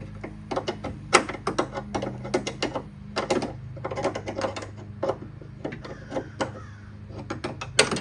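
An 11 mm open-end wrench clicking and tapping against a door handle mounting nut and the surrounding sheet metal inside a C3 Corvette door. The clicks come irregularly, several a second, as the nut is worked loose a little at a time in the cramped door cavity.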